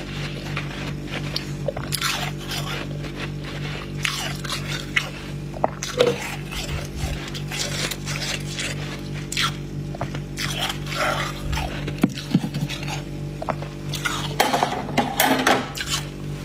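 Freezer frost being scraped and crunched in irregular, crisp strokes, over a steady low hum.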